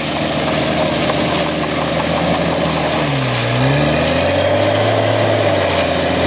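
4x4 SUV's engine running under load as its wheels spin in deep snow, throwing snow without the vehicle getting free. The revs dip about three seconds in, pick up briefly, then settle lower.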